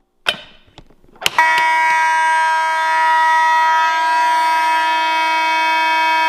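A fire alarm pull station is pulled with a few sharp clacks. About a second and a half in, older Edwards Vibratone fire alarm horns start sounding in one loud, steady, unbroken buzzing tone.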